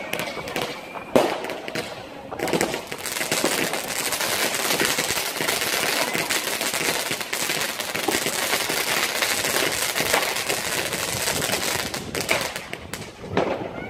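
Consumer New Year's fireworks: a few sharp bangs in the first two seconds, then about ten seconds of dense, rapid crackling as a firework battery fires its rising, crackling comets, thinning out near the end.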